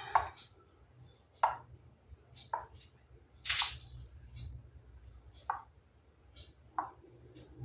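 Small plastic squeeze bottles of pouring paint handled and squeezed over a canvas: a scattered series of soft clicks and taps, with one short, sharper hiss about three and a half seconds in, over a low steady hum.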